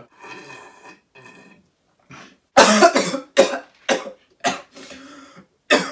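A man coughing hard in a fit of about six short coughs, starting about two and a half seconds in after a faint breathy stretch.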